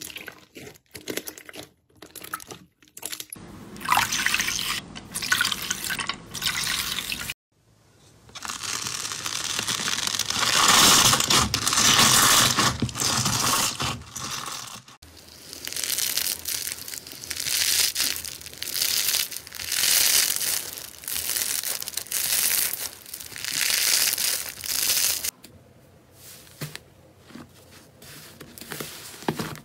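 Slime being squeezed and kneaded by hand in a bowl: wet squishing with crackling and popping of trapped air, in a run of separate squeezes broken by brief pauses.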